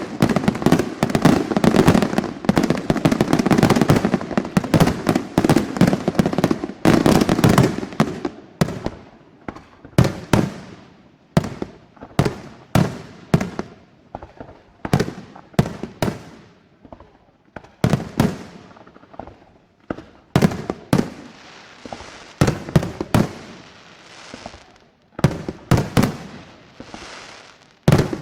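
Fireworks going off: a dense barrage of overlapping bangs and crackle for the first eight seconds or so, then thinning to separate sharp booms, roughly one a second, each trailing away.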